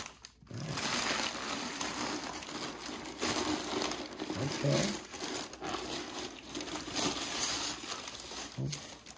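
Tissue-paper wrapping crinkling and rustling as gloved hands pull it off a plastic helmet, starting after a brief hush.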